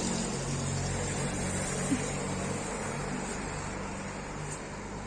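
A motor vehicle's engine running with a low steady hum that slowly fades away, with one short click about two seconds in.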